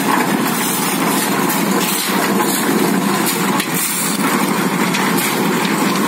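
Small engine-driven drum concrete mixer running steadily.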